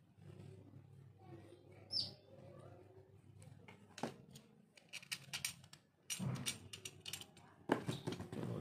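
Handling noise from working on an opened laptop charger: scattered sharp clicks, then a dense run of clicking and rustling in the last few seconds, over a low steady hum. A single short high chirp sounds about two seconds in.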